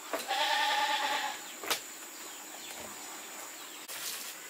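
A goat bleats once, a quavering call about a second long, followed by a single sharp click.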